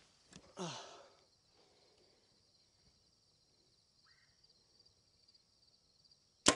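A compound bow being shot near the end: one sharp, loud snap of the string and limbs on release, with a brief low ring after it. Steady high-pitched insect chirring runs underneath throughout.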